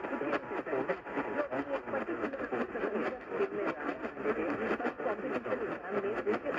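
Muffled, unintelligible talk from a radio broadcast, thin and band-limited, with no bass or treble.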